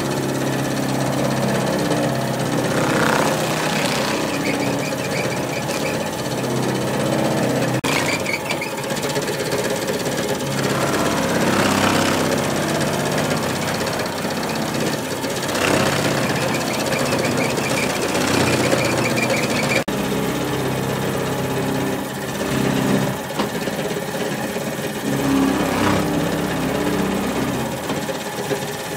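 Tannery finishing machine running, its motor-driven roller drum spinning as a sheepskin is pressed against it. A steady motor hum and rattle, with a thin high whine that comes and goes.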